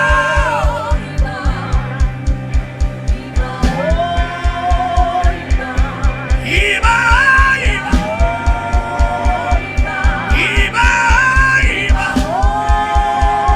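Live worship music: a lead singer holding long, sliding notes with no clear words over sustained keyboard chords and a steady bass-drum beat.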